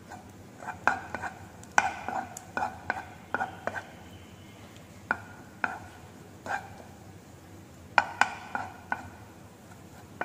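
A spatula stirring and scraping chopped dried fruit and fried onion around a nonstick frying pan, with irregular knocks against the pan, each giving a short ring.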